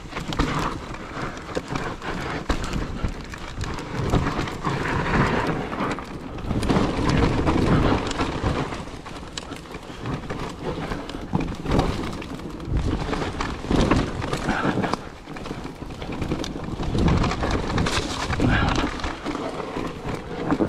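Mountain bike descending a rough dirt trail: knobbly tyres rumbling over dirt and roots, with the bike clattering and knocking over bumps in waves of louder rumble.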